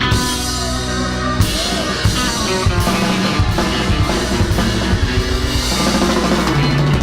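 Live rock band playing an instrumental passage, with a drum kit striking steadily under sustained guitar and keyboard-like chords.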